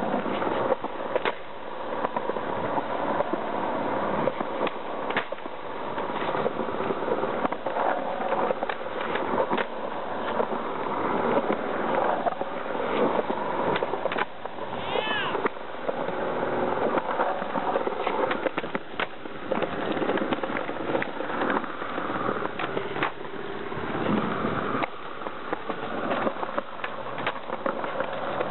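Skateboard wheels rolling on rough asphalt, with repeated sharp clacks of the tail popping and the board and wheels landing during flatground tricks. A brief high squeal comes about halfway through.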